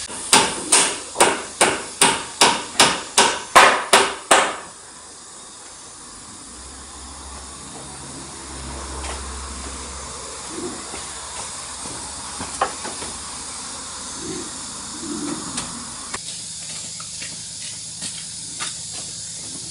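Hammer blows, about eleven quick, evenly spaced strikes, stopping after about four seconds; then a steady hiss with scattered light clicks.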